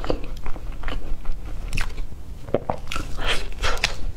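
A person biting into and chewing a small baked pastry, heard close up as many short, sharp mouth clicks, busier in the second half.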